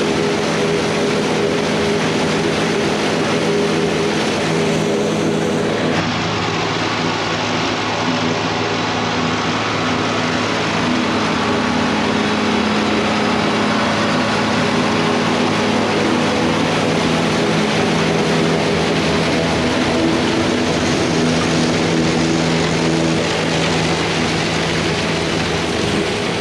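John Deere diesel tractor running steadily under load, driving PTO-powered corn silage machinery: a constant engine hum under a dense rushing machine noise. The sound changes abruptly about six seconds in, as at a cut between two shots of the same work.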